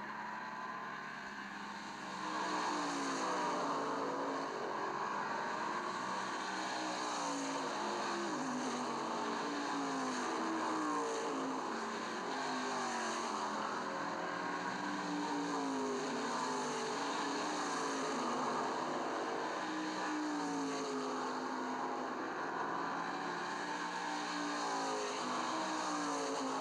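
Racing car engines at high revs, their pitch climbing and dropping again and again as cars accelerate, shift and pass, over a steady hiss. It is an engine soundtrack added to the silent home film, and it grows louder about two seconds in.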